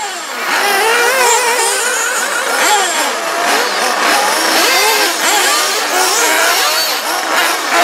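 Several 1/8-scale nitro RC buggy engines, small two-stroke glow motors, running and revving together, their overlapping pitches constantly rising and falling.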